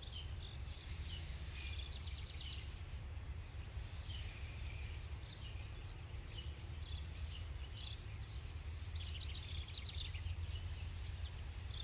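Small birds chirping and singing in short, repeated phrases over a steady low rumble of outdoor background noise.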